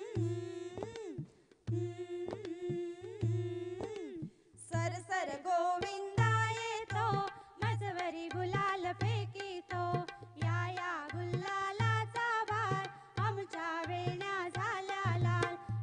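Marathi folk dance song with a steady drum beat: a held melodic note over the beat for the first few seconds, then, about five seconds in, a busier melody that bends up and down in pitch over the same beat.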